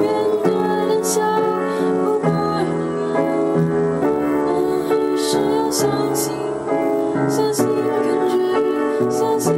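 A slow, tender piece played on a piano, with sustained chords changing every second or two, and a woman's voice singing softly over it.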